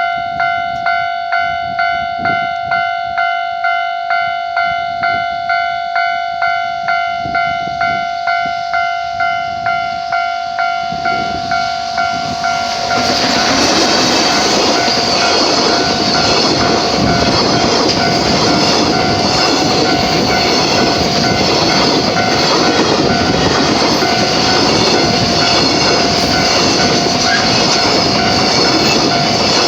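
Japanese level-crossing warning bell ringing, about two strikes a second. About 13 s in, a JR Freight train hauled by an EF210 electric locomotive passes close by, and its loud wheel-and-rail noise drowns out the bell, which still rings faintly beneath it.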